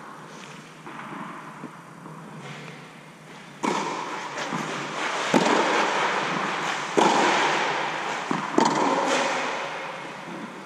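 Tennis ball struck back and forth with rackets in a rally: four sharp hits, about a second and a half apart, each ringing out in a long echo inside an air-supported fabric tennis dome.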